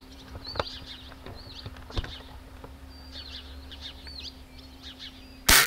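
Small birds chirping repeatedly over a steady low hum, then near the end a single sharp shot from a Daisy Buck BB gun.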